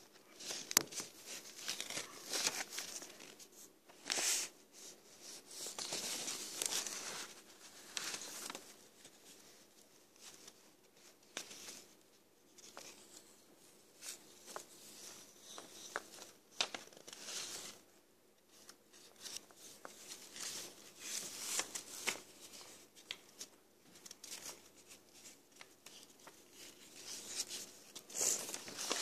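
Sheets of paper rustling and being handled, in irregular scratchy bursts.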